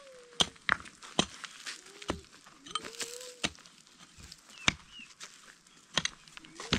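Irregular sharp knocks and clicks, several a second, with a few faint short calls behind them.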